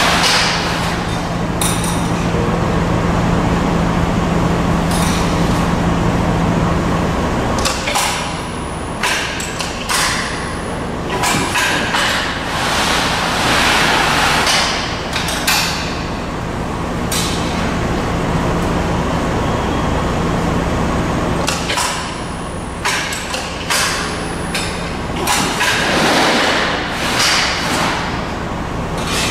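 A sheet-metal folding machine runs with a steady low hum while sheet metal is slid into place and folded. Irregular metal clatters and knocks come in two spells, from about a third of the way in and again near the end.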